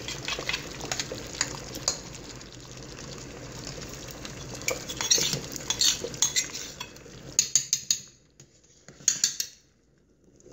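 A utensil stirring, scraping and clinking in a small ceramic dish as cornstarch and warm water are mixed into a slurry, over a steady hiss from a steaming pot. About eight seconds in it falls nearly silent, broken by a few clicks.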